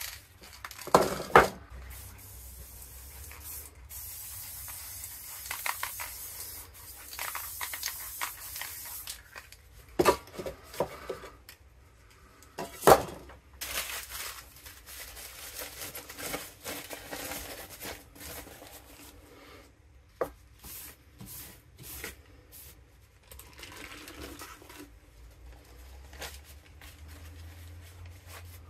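Aerosol spray paint cans hissing in stretches through the first several seconds, with a few sharp knocks and clicks as cans are handled. In the second half, paper crinkling and tearing as a crumpled magazine page is worked over the wet paint.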